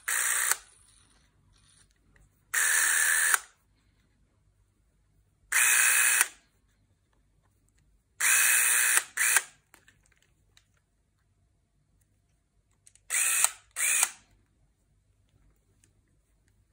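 Beaulieu 4008 ZM4 Super 8 cine camera's electric motor running in short bursts, started and stopped about six times, each run lasting under a second.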